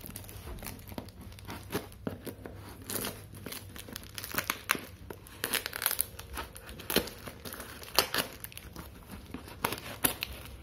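A kitchen knife slicing and prying through layers of brown packing tape and paper wrapping on a parcel, with irregular crinkling, tearing and sharp scratchy crackles.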